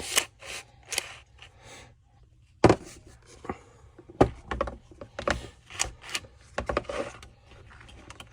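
Irregular clicks and knocks of hands working the plastic recoil starter pulley and rope of a Stihl TS 700 cut-off saw, with two sharper knocks, about three and four seconds in.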